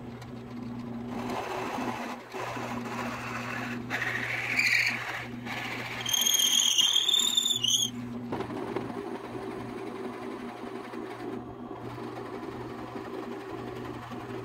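Drill press running steadily while a 7/8-inch bit bores a deep hole into a maple block. About six seconds in, the cutting gives a high-pitched squeal for a couple of seconds, the loudest part.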